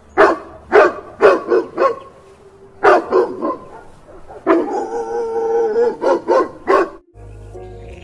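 Dog barking: a quick run of short barks, a couple more, then one drawn-out call of about a second and a half, and a few more short barks near the end.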